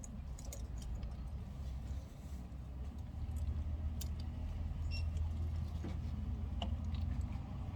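Vehicle running: a steady low rumble that grows louder about three seconds in, with scattered small clicks and ticks over it.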